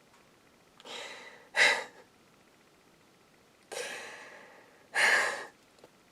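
A person's emotional breathing through tears: two heavy breaths, each a longer, quieter breath followed by a short, louder sigh, about a second in and again past the middle.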